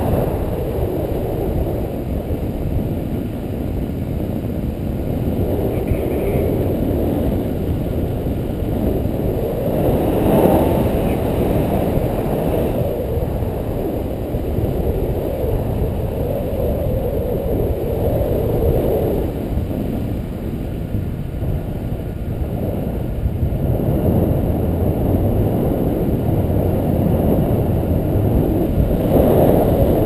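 Wind rushing over the camera microphone in paraglider flight: a steady low rumble that swells now and then.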